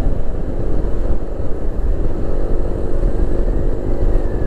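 Wind rush and road noise from a Yamaha NMAX scooter riding at highway speed. A steady hum joins about halfway through, and a faint whine rises then falls near the end.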